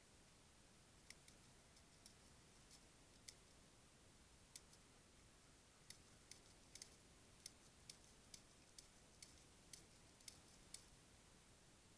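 Faint, sharp clicks at irregular intervals over near silence, about twenty of them starting about a second in.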